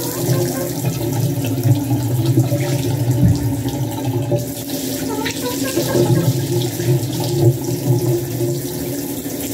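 Water running from a handheld shower head, spraying into a bathtub while a chicken is rinsed, with a steady low hum beneath the spray.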